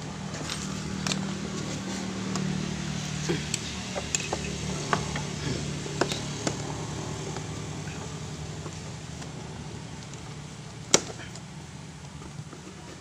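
Screwdriver clicking and scraping against metal bolts and brackets under a motorcycle seat, a string of small sharp clicks with one loud click about eleven seconds in. A vehicle engine hums steadily underneath, slowly fading.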